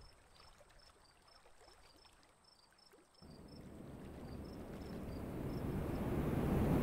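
Faint, quick high chirps alternating between two pitches. Then, from about three seconds in, the rushing noise of wind swells steadily louder.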